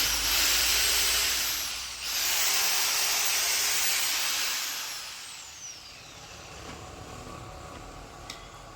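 Powerbilt 4-26 corded rotary hammer running in two short trigger pulls with a brief drop between them, then a falling whine as the motor coasts down and fades out about five seconds in.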